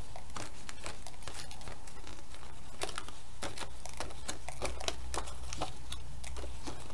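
Small paper clicks and ticks as die-cut scraps are pushed out of a sheet of card stock by fingers, scattered irregularly, over a steady low hum.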